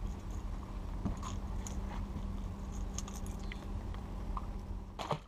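Steady low rumble with a faint steady hum, over which fishing tackle clicks and rattles lightly a few times as a caught fish is handled on the lure. The sound cuts off abruptly at the very end.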